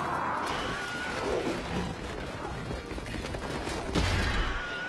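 Film battle sound: a dense clatter of weapon clashes and impacts, with a man shouting at the start and a heavy thud about four seconds in.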